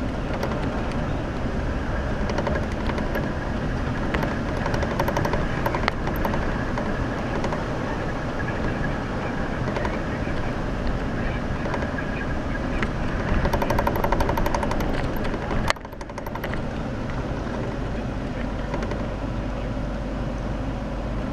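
Jeep Wrangler driving over a rough dirt trail: steady engine and tyre noise with continual rattling and knocking. The sound drops away briefly about three-quarters of the way through.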